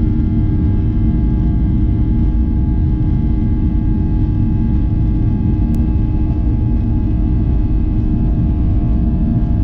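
Boeing 737-800's CFM56-7B jet engines running steadily while the plane taxis, heard from inside the cabin: a steady low rumble with faint steady whining tones over it.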